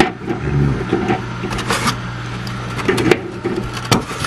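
Chicken eggs and fingers tapping and clicking against the plastic egg-turner tray of a Nurture Right 360 incubator as the eggs are set in place, a few sharp clicks scattered through, over a steady low hum.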